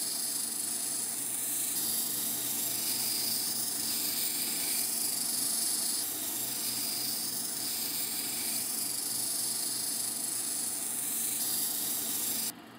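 Cabbing machine running, its wheels spinning as a tiger eye cabochon is held against the cerium polishing wheel, giving a steady hiss. The sound cuts off abruptly just before the end.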